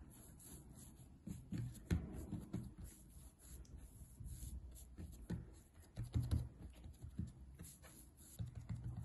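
Palms rolling a log of soft butter cookie dough back and forth on a countertop: faint, irregular rubbing with light thuds of the hands against the surface.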